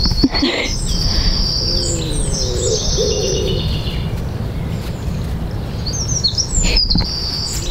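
Small garden birds chirping and singing in repeated high phrases, with a lower cooing call, like a pigeon's, about two to three seconds in, over a steady low rumble.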